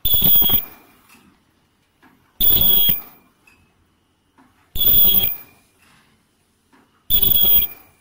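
Paper popcorn bucket forming machine running through its cycle: a loud, short burst of noise with a ringing high tone, four times at an even pace of about one every two and a half seconds.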